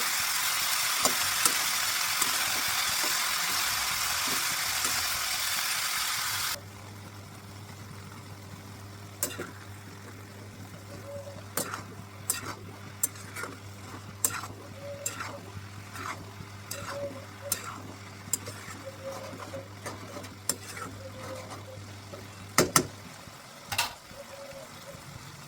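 Shredded cabbage frying in a pan with a loud sizzle that stops suddenly about six seconds in. After that, a metal spatula clinks and scrapes against the pan as the cabbage is stirred, over a quieter sizzle.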